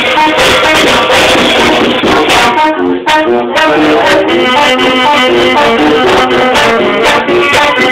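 Tamborazo band playing live: a tambora bass drum, a snare drum and cymbals under sousaphone and other brass and saxophone. The drums drop back briefly about three seconds in, leaving the horn melody on its own.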